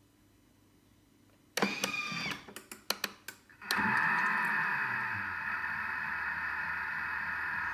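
Thermomix TM5 starting a cooking program: a brief whir about one and a half seconds in, then a few sharp clicks, then the machine settles into a steady running whir.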